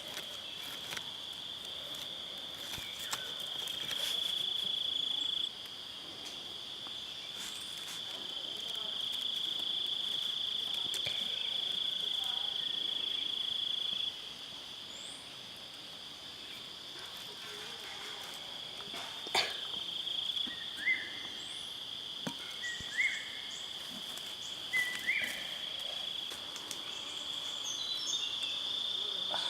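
Insects trilling in a steady high-pitched drone that swells louder for several seconds at a time, with a single sharp click about two-thirds of the way in and a few short chirps after it.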